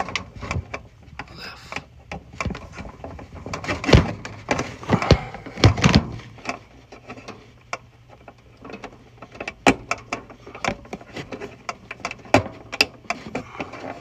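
Hands handling a bundle of wires and pushing insulated push-on connectors onto the relay terminals of a microwave control board: irregular clicks, taps and rustling, loudest between about four and six seconds in.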